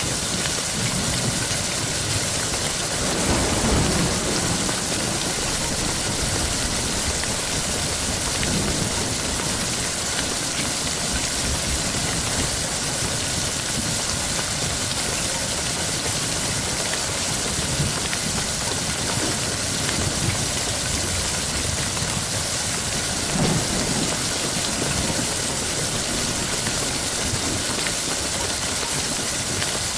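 Steady heavy rain hissing, with a low rumble swelling briefly a few seconds in and again about three quarters of the way through.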